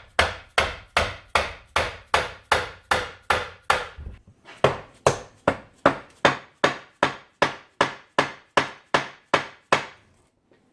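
Repeated hammer blows, about three a second, struck on an NP208 transfer case to break its seized aluminum housing loose. There is a brief pause about four seconds in, and the blows stop near the end.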